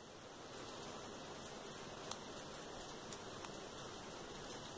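Scissors trimming paper, with three small sharp snips in the second half, over a steady hiss.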